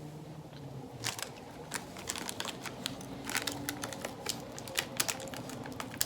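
Plastic snack wrapper crinkling and crackling as it is handled, in a run of sharp crackles starting about a second in.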